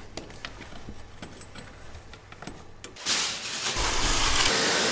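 Faint clicks of a hand screwdriver turning screws into a metal floor transition strip, then, about three seconds in, a hand brush sweeping dust and rubble into a plastic dustpan, a loud steady bristly hiss.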